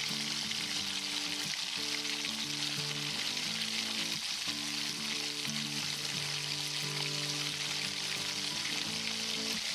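Thick mushroom pepper masala sizzling steadily in a pan. Soft background music of held low notes, changing every second or so, plays underneath.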